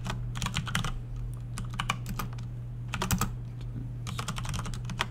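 Typing on a computer keyboard: short runs of quick keystrokes with pauses between them, over a steady low hum.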